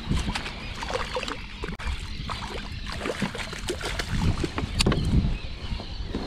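A hooked spotted seatrout splashes at the water's surface beside a plastic kayak, with scattered clicks and knocks of gear against the hull. About four seconds in, a louder splash comes as a landing net scoops it out of the water.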